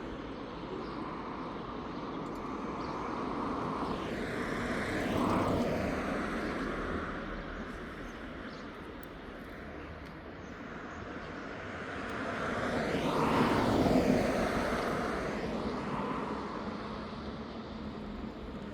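Road traffic: two vehicles pass by, each swelling up and fading away with a drop in pitch, the first about five seconds in and a louder one about fourteen seconds in, over a steady hum of more distant traffic.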